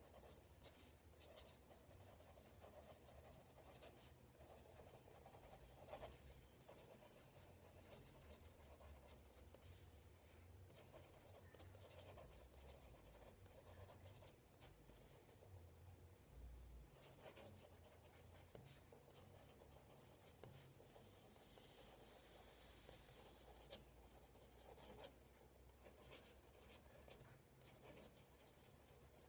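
Faint scratching of a fountain pen nib writing cursive on paper, with occasional light ticks as the nib touches down and lifts.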